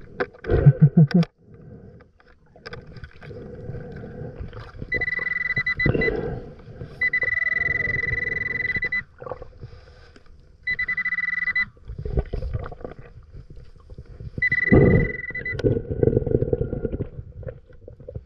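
Underwater Pulse Dive metal detector sounding a steady high beep four times, each lasting one to two seconds, as it signals a target in the sand. Between the beeps, loud rushing bursts of the diver's exhaled breath bubbling out of the regulator.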